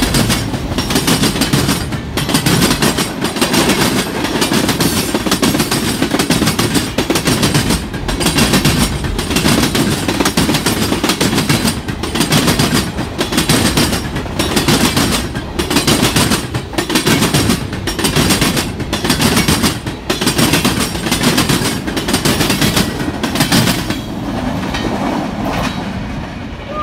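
Freight cars rolling past at close range: steady rumble of steel wheels on rail with repeated clacks as the wheelsets cross rail joints. It fades near the end as the last car goes by.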